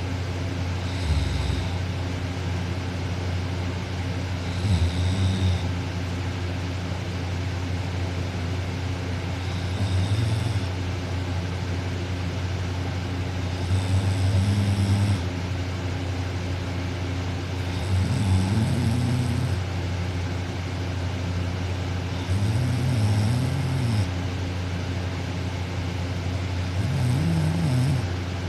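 A young woman snoring while asleep on her back, kinda loud, about seven snores at roughly four-second intervals, over a steady low hum.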